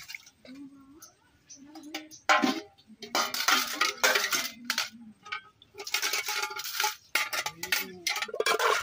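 Metal bowls and plates clattering and scraping against each other as they are washed by hand, in several irregular bursts.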